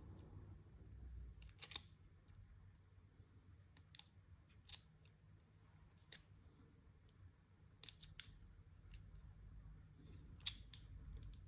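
Faint clicks and taps of a Favero Assioma Pro MX power meter pedal and its charging cable's connector being handled and fitted together, with two sharper clicks, one about two seconds in and one near the end.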